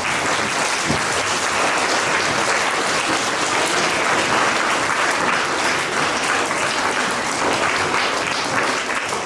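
An audience in a hall applauding, a dense steady clapping that eases off near the end.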